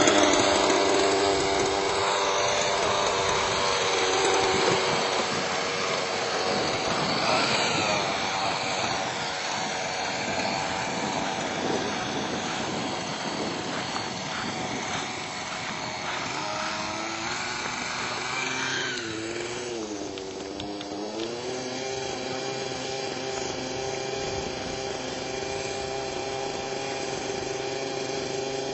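Robbe Millennium 2 radio-controlled model helicopter flying: its engine and rotor run continuously, the pitch swinging up and down as the helicopter manoeuvres, with a marked wavering dip and recovery about two-thirds of the way through.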